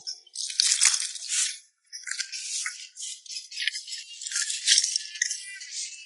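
Shaker-like rattling in quick, uneven bursts, all high-pitched with nothing low beneath it, with a brief pause about two seconds in.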